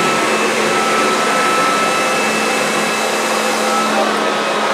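Handheld electric leaf blower running at full speed: a steady high motor whine over a loud rush of air.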